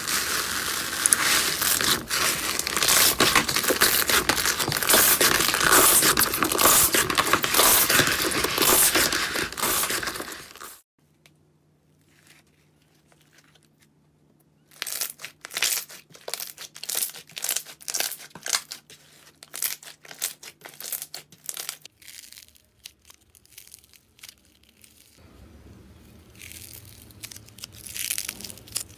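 A hand squeezing bubbly foam slime in a plastic tub, the bubbles popping in a dense, loud crackle that stops suddenly about 11 seconds in. After a short pause come separate sharp pops and crackles from clear slime being handled, with a faint steady hum underneath, and near the end a softer crackling.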